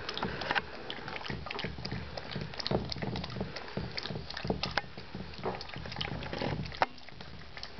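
A starved six-week-old puppy eating dry kibble from a stainless steel bowl: quick, irregular crunching and clicking as the kibble is chewed and knocked against the metal.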